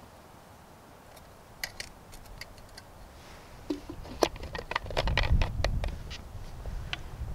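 Light metallic clinks and ticks of an aluminium Trangia saucepan being set onto the Trangia Storm Cooker's pot supports. A couple of clicks come early, then the clinks crowd together in the second half over a low rumble.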